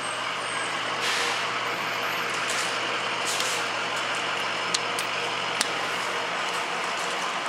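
Soda vending machines' refrigeration units running: a steady whooshing fan noise with a low hum under it, and two sharp clicks a little past halfway.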